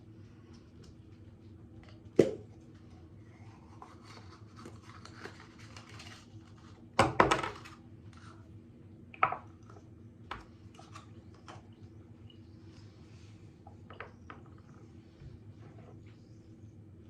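A few sharp knocks and clatters of objects being set down and handled, the loudest a short cluster about seven seconds in, over a steady low electrical hum.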